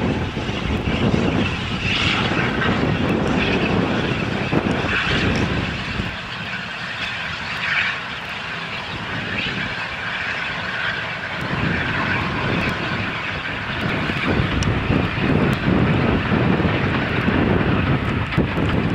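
LNER A4 Pacific 60019 Bittern, a three-cylinder steam locomotive, hauling a passenger train at speed: a steady roar of exhaust and running train noise that eases off in the middle and builds again near the end.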